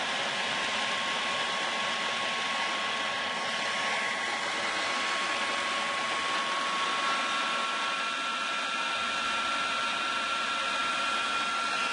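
Electric food processor running steadily, blending basil, parsley, garlic and pine nuts into pesto while olive oil is drizzled in through the feed tube. A constant motor whirr with a steady whine, whose pitch steps up a little past halfway.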